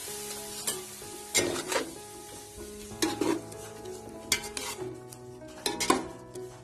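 Spice and vegetable masala in a hot pot sizzling after water is poured in, the sizzle fading over the first second or so, while a metal spatula stirs it with repeated scrapes and clinks against the pot.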